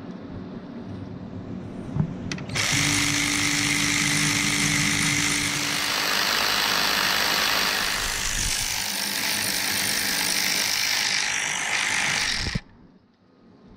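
Air ratchet with a 15 mm socket running on the water pump bolts: a loud, steady hissing rattle that starts about two and a half seconds in, runs for about ten seconds and cuts off suddenly near the end.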